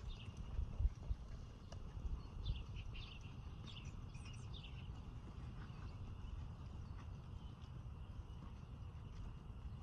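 Birds chirping in short, quick calls through the first few seconds over a steady low outdoor rumble, with a few dull thuds early on from a horse's hooves trotting on soft arena dirt.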